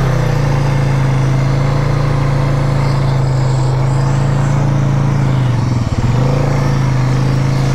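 Polaris Sportsman 570 ATV's single-cylinder engine running at a steady, high-held speed under throttle as the quad, stuck in a mud rut, is pulled out; the note dips briefly about six seconds in, then holds again.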